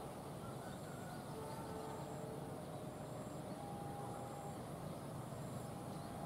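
Distant diesel locomotives running as two trains approach, a steady low rumble, with a few faint short tones over it.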